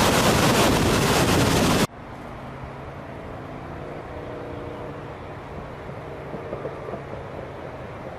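Loud, steady rush of a waterfall that cuts off abruptly about two seconds in, giving way to a much quieter low rumble with a few faint steady tones.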